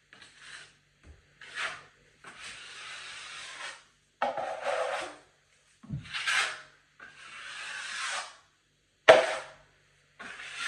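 Metal drywall taping knife scraping and smoothing wet joint compound and paper tape on drywall: about six uneven rasping strokes, some short and some drawn out over a second or more.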